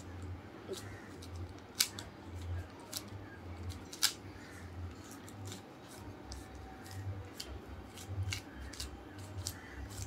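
A plastic 3x3 Rubik's cube being scrambled by hand: its layers turning with an irregular run of quick clicks, with sharper snaps about two and four seconds in.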